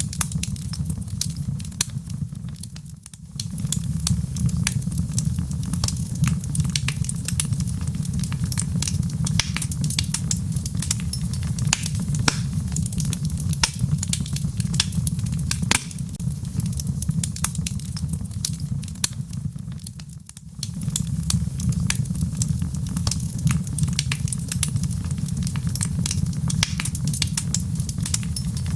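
Logs burning in a fireplace: a steady low rumble of flame with frequent sharp crackles and pops. The level dips briefly twice.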